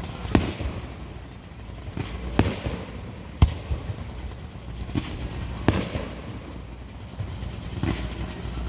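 Aerial fireworks shells bursting: a string of sharp bangs about every one to two seconds, each trailing off in a smear, the loudest about three and a half seconds in, over a steady low rumble.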